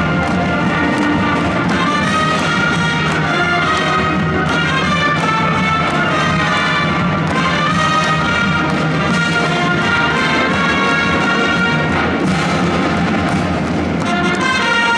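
Large combined wind band playing, brass to the fore, with held chords and moving melody lines at a steady, full loudness.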